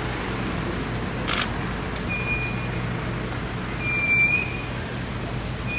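Steady background hiss with a low hum. A single camera shutter click comes about a second and a half in, and two short, thin, high whistles follow in the middle, the second the louder.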